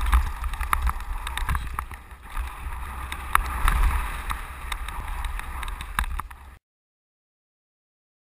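Wind buffeting a bike-mounted camera's microphone over the rattle of a mountain bike rolling fast down a rocky dirt trail, with sharp clicks and clatters from the bike. The sound cuts out completely about six and a half seconds in.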